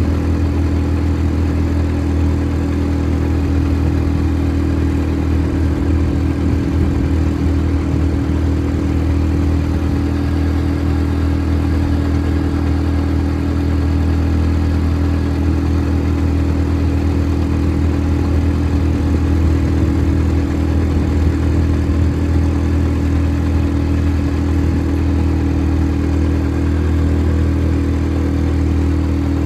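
ATV engine running at a steady pitch, with a strong low hum that holds even throughout.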